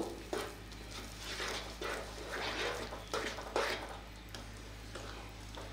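Wooden spatula stirring thick semolina kesari in a non-stick pan, giving soft wet squishing strokes about twice a second. The mixture is loosening as the freshly added sugar melts into it.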